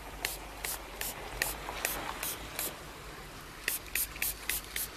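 Würth rain-repellent glass coating spritzed from a small hand spray bottle onto a car side window: quick short spritzes, two or three a second, a pause of about a second past the middle, then another run of spritzes.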